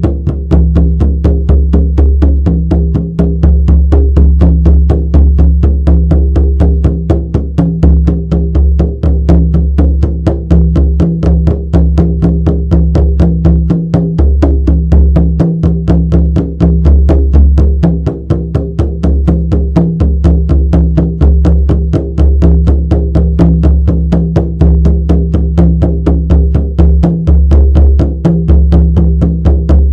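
Shamanic frame drum beaten in a steady, fast, even rhythm of about four strokes a second, each stroke leaving a deep ringing boom.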